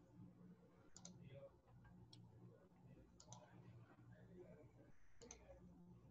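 Faint computer mouse clicks over a low hum: four or so short clicks, several in quick pairs, spaced a second or two apart, as the screen share is being set up.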